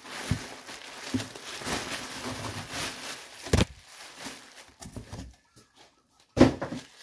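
Plastic bubble wrap rustling and crinkling as it is pulled out of a cardboard box, with a sharp knock about halfway through. Near the end, a loud thump.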